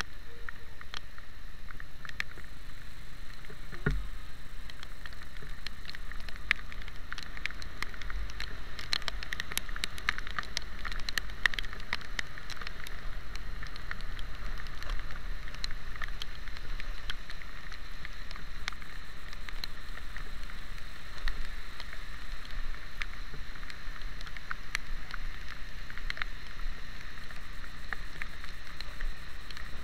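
Rain spattering on a camera mounted on a moving motorcycle, heard as many irregular sharp ticks over a steady hiss of wet tyres and wind on a rain-soaked road.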